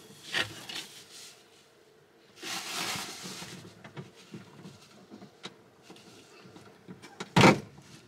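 Hands working inside a car door behind its plastic vapour membrane: the sheet rustles, small parts tick and click, and near the end a single sharp loud snap comes as a linkage part is pulled out.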